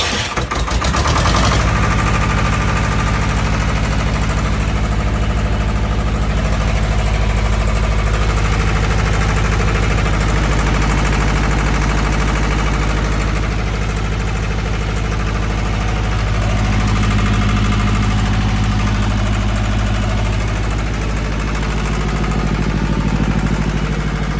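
Two-cylinder Kirloskar diesel generator set engine cranking briefly and catching in the first second or so, then running steadily.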